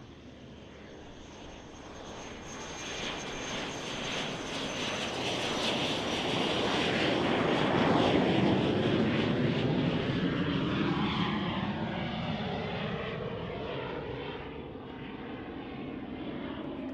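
Cirrus Vision SF50 single-engine jet flying low past. The jet noise builds to a peak about eight seconds in and then fades as it climbs away, with a high whine that slides down in pitch as it goes by.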